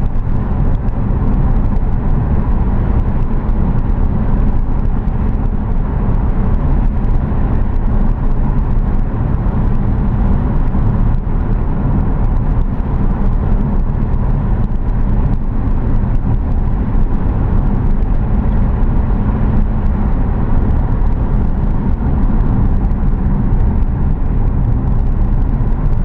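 Steady running noise of a moving car: an even rumble of engine and road noise.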